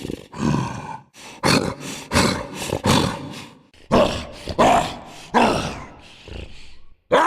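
A person's voice making short roar-like growls as an imitation of Totoro, about ten in a row, each starting abruptly and fading away.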